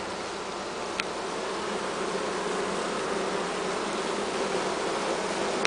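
Package of about 10,000 Russian honey bees buzzing in their screened shipping box: a steady, unbroken drone, with one light click about a second in.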